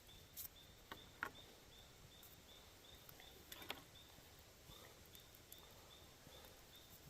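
Faint outdoor quiet with an insect chirping steadily in a high, even rhythm, about two to three chirps a second. A few light clicks and knocks from handling gear break in, the clearest about a second in and near the middle.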